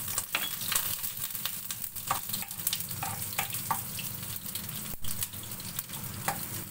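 Garlic sizzling in hot oil in a non-stick frying pan, with a metal spoon clicking and scraping against the pan as it is stirred.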